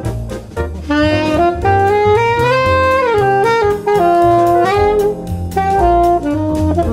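Alto saxophone playing a jazz melody, a phrase that climbs note by note for about two seconds and then steps back down, over a backing track with bass and drums.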